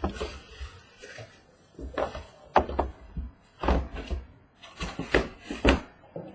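Sealed hobby boxes of trading cards being shuffled around on a table: a series of irregular cardboard knocks and thunks, about eight in all.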